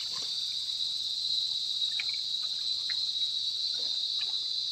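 Steady high-pitched chorus of insects, with a few faint small ticks.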